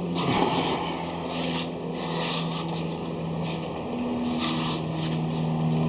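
Irregular scraping and rubbing sounds in several short bouts over a steady low hum.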